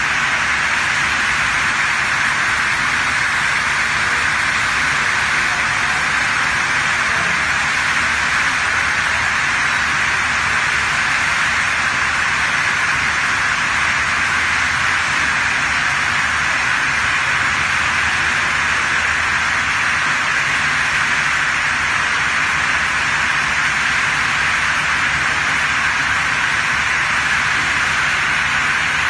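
Multi-blade rip saw running steadily, its circular blades spinning and motors humming: a constant whirring hiss over a low hum. The blades are running free, not yet cutting the log.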